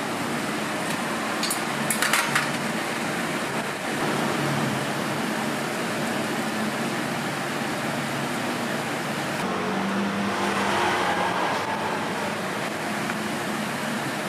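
Steady background noise around an electric waffle iron at a food stall, with a few sharp clicks of metal utensils about two seconds in.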